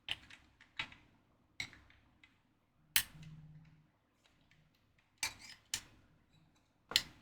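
Sharp clicks and knocks from enclosure parts and cables being handled during assembly, about seven of them at irregular spacing, the loudest about three seconds in and another near the end.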